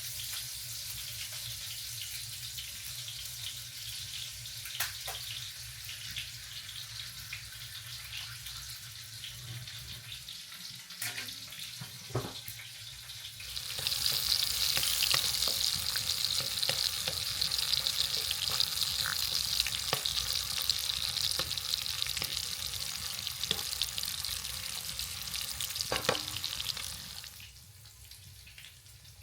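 Food sizzling in a frying pan, a steady hiss with a few sharp utensil clicks. The sizzle grows louder about halfway through and falls away shortly before the end.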